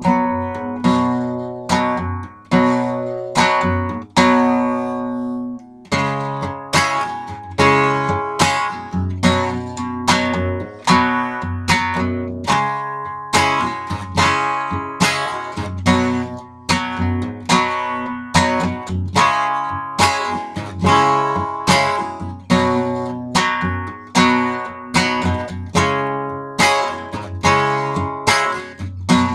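Acoustic guitar strummed in a steady rhythm, with its chords ringing between strokes; a few seconds in, one chord is left to ring before the strumming picks up again.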